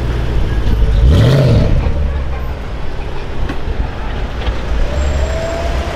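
Range Rover Sport SVR's supercharged 5.0-litre V8 rumbling at low speed as it pulls away, with a short rev blip about a second in that rises and falls in pitch.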